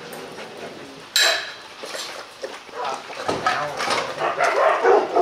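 Metal dog bowl clanks sharply about a second in, then a Rottweiler laps noisily from it in quick repeated strokes, roughly three a second.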